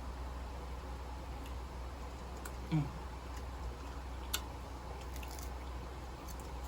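Close-up mouth sounds of someone eating a cheesy sloppy joe hot dog: wet chewing with a few sharp lip smacks, the sharpest about four seconds in, and a short hummed "mm" near the middle.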